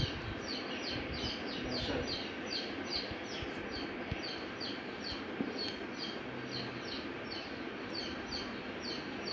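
A small bird chirping over and over, an even series of short, high, falling chirps about three a second.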